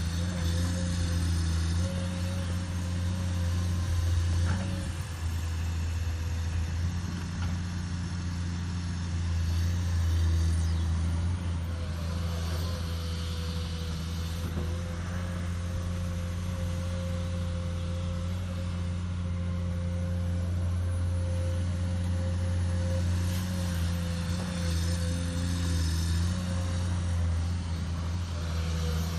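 Komatsu PC210 hydraulic excavator's diesel engine running steadily under working load while the machine digs sand and loads it into a dump truck. A low engine drone, with a faint steady higher tone above it.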